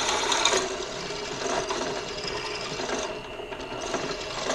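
Benchtop drill press running, its bit cutting into 1/8-inch flat steel bar. The harsh cutting noise eases about half a second in, leaving the motor running steadily with a thin whine.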